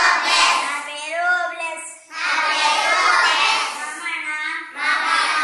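A class of young children reciting Sanskrit together in unison in a sing-song chant, in phrases broken by a short pause about two seconds in and another near the end.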